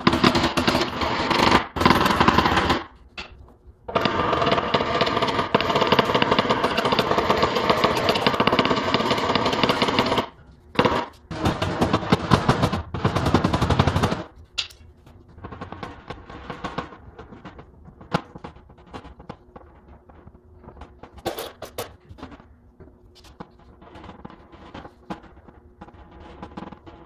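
A power tool rattling in three long bursts, the longest about six seconds, then lighter scattered taps and clicks.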